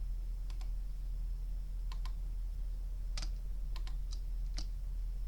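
Scattered clicks of a computer keyboard and mouse, about nine in all, several coming in quick pairs, over a steady low electrical hum.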